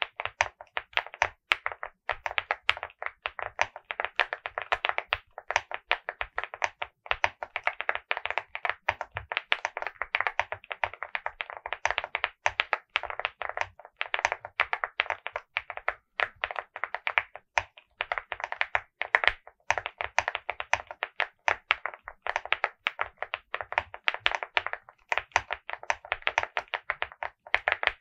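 Fast, continuous typing on a Hi75 mechanical keyboard with Akko CS Piano switches and Mocoo cake keycaps, a quick run of key taps broken by short pauses. The board gives the switches a deep sound.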